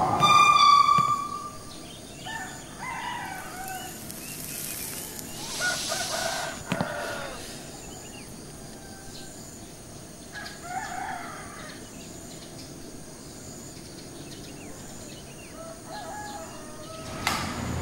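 Chickens: a rooster's crow in the first second, then quiet scattered clucking calls. There is a short rushing noise around five seconds in and a single knock about seven seconds in.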